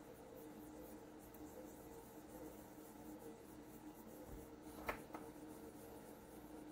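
Faint dry rubbing of palms rolling a small ball of polymer clay, over a steady low hum. A single sharp click sounds about five seconds in.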